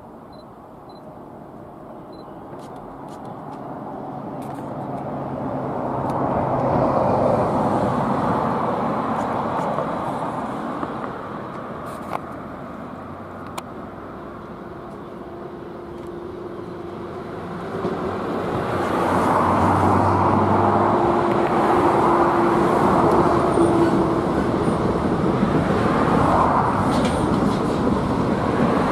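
Electric locomotive hauling a lignite train of empty hopper wagons, approaching and then passing beneath: a steady wheel-on-rail running noise that grows in two swells and is loudest in the second half as the wagons roll by below.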